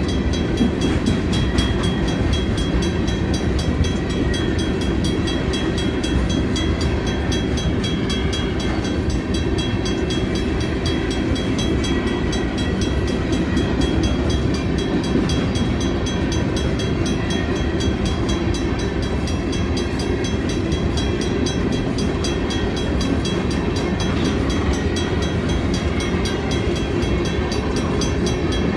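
Freight cars rolling steadily past a grade crossing: a constant rumble of steel wheels on rail. Over it, the crossing bell rings in rapid, even strokes.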